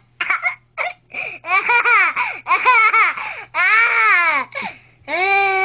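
Toddler shrieking with laughter: a rapid string of short, high-pitched squeals.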